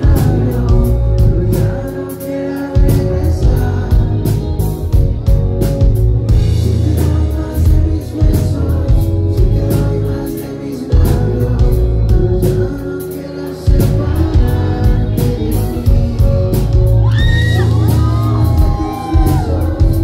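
Live band playing loudly through a club PA: a lead singer sings into a microphone over drums, a heavy bass low end and electric guitar, with the low end dropping out briefly a few times.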